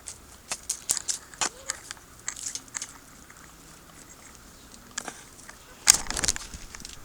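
Potting soil being raked up and scraped with the hands or a small tool: a run of short, sharp scratches and crackles, then a louder scrape with a low bump near the end.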